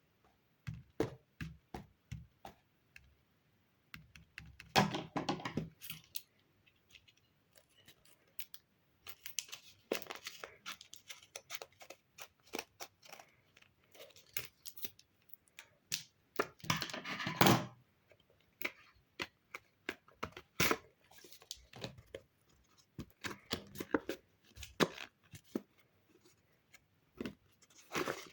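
Paper and tape being worked by hand for paper crafts: scattered snips and clicks, with several longer tearing and rustling stretches, the loudest about 5 and 17 seconds in.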